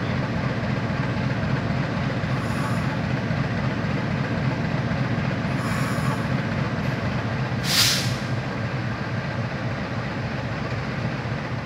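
CC201-class (GE U18C) diesel-electric locomotive idling at a standstill with a steady low engine rumble. About two-thirds of the way in, a short, sharp hiss of air is released.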